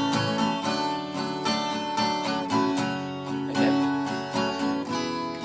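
Acoustic guitar strumming chords in a steady rhythm: an instrumental passage with no singing.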